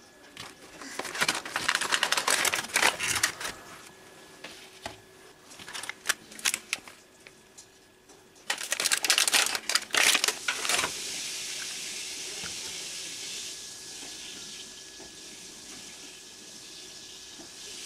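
Plastic blister packaging and a cardboard toy box rustling and crinkling in three bursts of handling as a plastic spinning-top toy is taken out of its tray, followed from about two-thirds of the way through by a steady high hiss.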